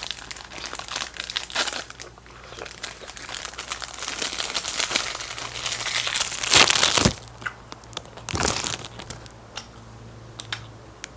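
Plastic snack wrapper crinkling as it is handled and squeezed at the mouth, with the loudest crumple about two-thirds of the way through and a few light ticks near the end.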